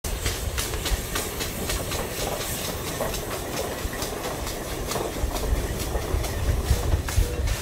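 150 hp Case steam traction engine under way, its exhaust chuffing in a steady rhythm of about three beats a second over a low rumble.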